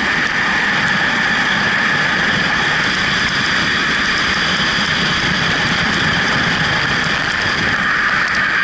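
Freefall wind rushing over a helmet-mounted camera: a loud, steady rush of air with a high whistle over it.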